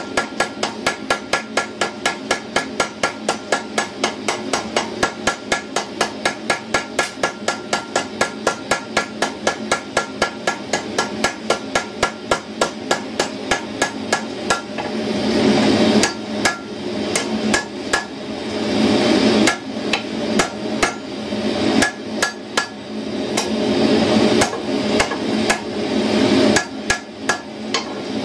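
Hand hammer striking red-hot steel on an anvil while forging tongs, in a steady rhythm of about three blows a second. About halfway through, a louder steady rushing noise comes in and the blows become fewer and irregular.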